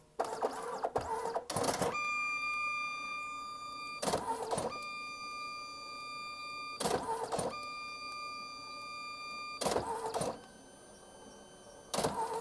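DNP dye-sublimation photo printer printing a 4x6 photo: a steady high motor whine, broken every two to three seconds by short whirring bursts, with a louder whirr near the end as the print is fed out.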